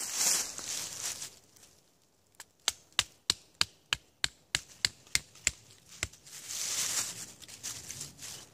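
Hatchet chopping wood, a run of about a dozen sharp, quick strikes at roughly three a second while a new wooden tent stake is shaped. Before and after the chops there is rustling in dry leaf litter.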